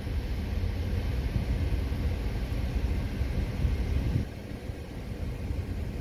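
Air rushing out of a 2011 Toyota Tacoma's dashboard vent with the cabin blower fan running: a low, rumbling rush that gets a little quieter about four seconds in.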